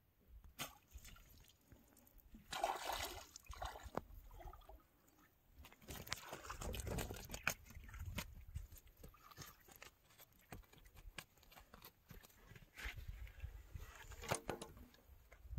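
Water sloshing and splashing in the shallows as a hooked fish is hauled out, with a louder burst of splashing a few seconds in. Scattered sharp knocks and rustles follow as the fish is landed on the muddy bank.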